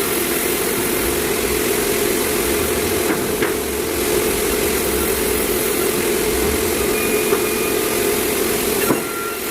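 Sawmill machinery running steadily, with a few sharp knocks about three seconds in and again near the end.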